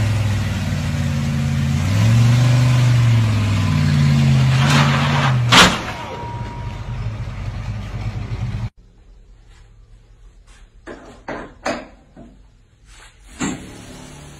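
A classic Ford Mustang's engine revving up and down as the car climbs a transporter ramp, with one loud sharp bang about five and a half seconds in. The engine cuts off abruptly and gives way to a much quieter stretch with a few sharp clicks and knocks.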